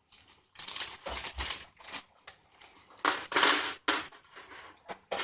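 Crinkling and crackling from handling the Bunchems set's plastic packaging and pieces, in several bursts with the loudest about three seconds in.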